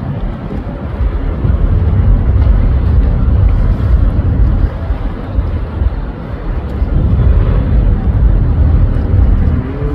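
A ferry under way: a loud, gusting low rumble of wind on the microphone over the boat's engine and water noise.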